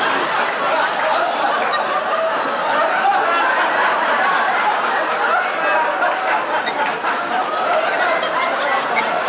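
Studio audience laughing steadily and heavily for several seconds.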